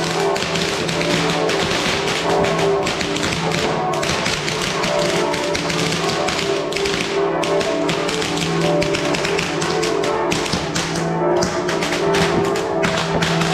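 Fireworks crackling and popping in a dense, continuous rattle, with church bells pealing steadily underneath.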